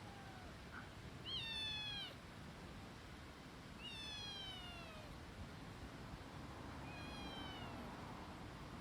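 A cat meowing three times, a few seconds apart, each meow falling in pitch; the first is the loudest.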